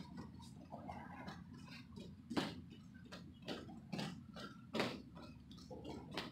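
Bare feet stepping and landing on a training mat during a quick in-and-out footwork drill: irregular soft slaps, about one or two a second.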